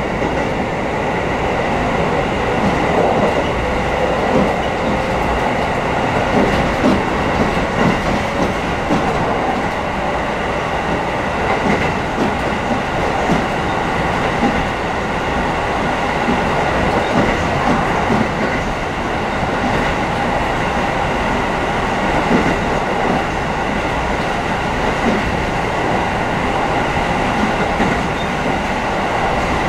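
Interior running sound of a Kotoden 1200-series electric train car (ex-Keikyu 700, with Toyo Denki equipment) travelling at steady speed, with wheels knocking over rail joints. The air conditioning runs throughout.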